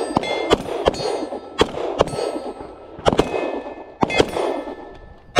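Pistol shots from several shooters firing while walking backward, about ten sharp cracks at irregular intervals, several followed by a short metallic ring.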